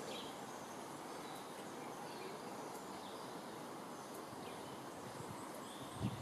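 Quiet outdoor ambience: a steady background hiss with faint, short bird chirps now and then.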